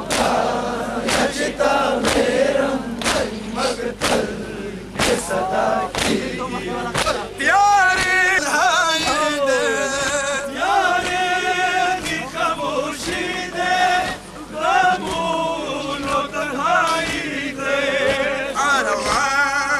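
A crowd of men chanting a Pashto mourning lament during matam, with sharp, rhythmic chest-beating thumps about once a second in the first part. From about seven seconds in, a male voice leads the lament in a wavering melodic line over the crowd.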